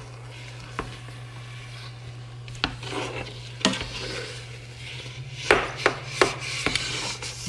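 A utensil stirring and scraping thick maja blanca (coconut-milk and corn-starch pudding with corn kernels) in a metal pot, with several sharp knocks against the pot, most of them bunched near the end. A steady low hum runs underneath.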